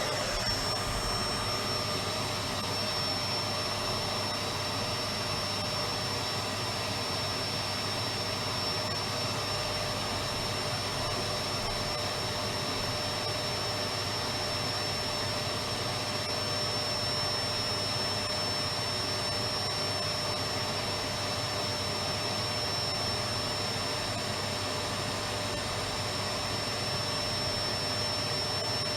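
Electric vacuum cleaner running continuously: a steady whooshing motor drone with a thin high whine over it.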